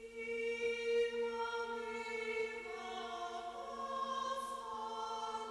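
Choral music from a film soundtrack: voices hold long, sustained notes over a steady low drone, with new higher notes entering and changing a few times.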